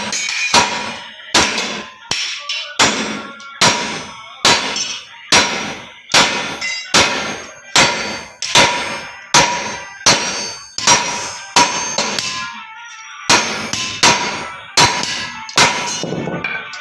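A hammer striking sheet metal in steady, even blows, about one and a half a second, each with a ringing metallic clang. The blows pause for about a second a few seconds before the end.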